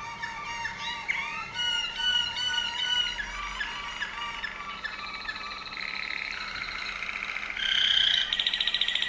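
Waterslager (Malinois) canary singing: a run of separate slurred notes and held whistled notes, passing into fast rolling trills that get louder about eight seconds in.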